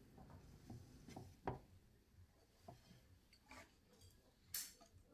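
Mostly quiet, with a few faint knocks and clicks of a small frying pan being lifted off a gas hob's grate and handled with chopsticks over a plate, and a sharper clink near the end.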